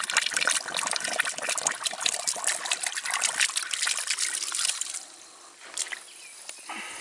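Water spraying and splattering out of a hydraulic ram pump's brass waste valve as it is worked by hand to start the pump cycling and build pressure. The spray cuts off about five seconds in, leaving a quieter trickle.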